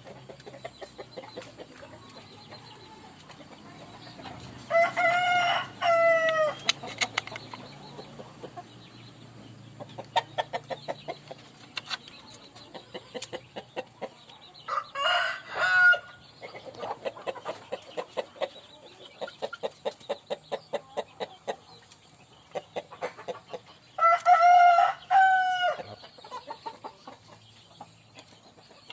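Indonesian village chickens in a coop: a rooster crows three times, each crow about two seconds long and roughly ten seconds apart. Between the crows, hens keep up runs of quick, repeated clucking.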